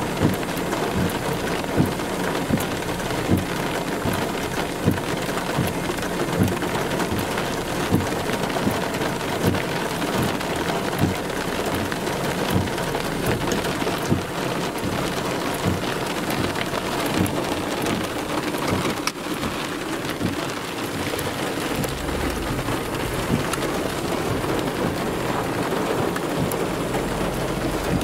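Steady rain hiss, with dull thumps about once a second through most of the stretch and a low rumble that comes in near the end.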